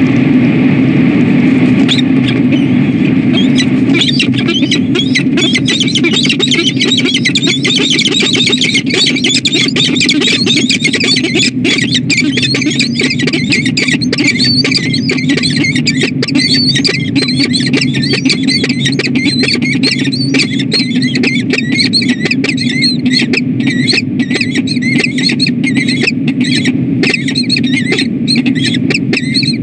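A pair of peregrine falcons calling during a courtship bonding display in the nest scrape. Rapid, harsh, repeated calls start about two seconds in and thicken soon after, then run on without pause over a steady low hum. The sound is doubled and rough because two camera feeds' audio play at once.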